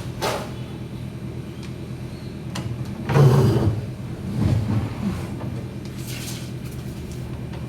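Washing machine parts being handled and shifted during disassembly: scraping and knocking, loudest about three seconds in and again a second or so later, over a steady low hum.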